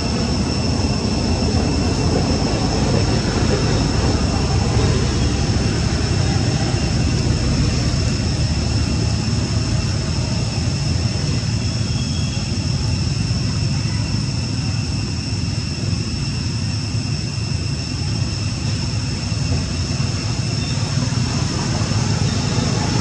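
Steady outdoor background noise: a constant low rumble with a thin, unchanging high-pitched drone over it.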